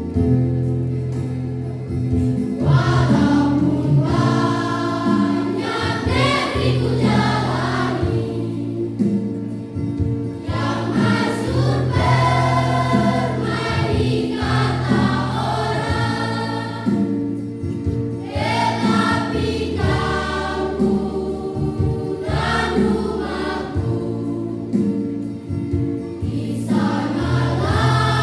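Junior high school choir singing, in phrases a few seconds long with short breaks between them.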